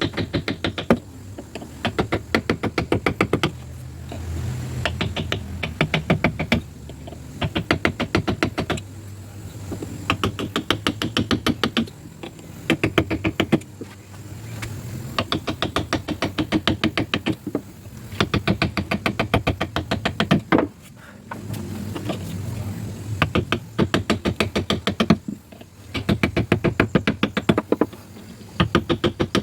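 Carving chisel being struck in quick runs of sharp taps, each run a second or two long with short pauses between, cutting into hard ironwood.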